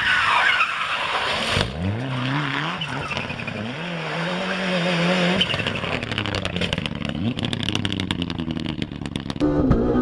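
Rally car engines at full throttle, with skidding tyre noise at first. An engine then revs up through a couple of gear changes, followed by a long run of rapid crackling clicks. A steady engine note comes in near the end.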